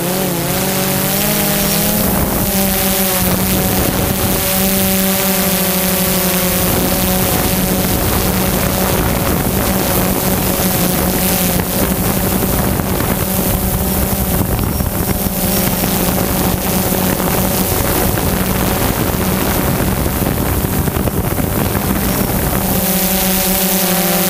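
Multirotor drone hovering: its motors and propellers give a steady buzzing hum whose pitch shifts slightly in the first few seconds and again near the end, with propeller wash rushing over the microphone of the drone-mounted camera.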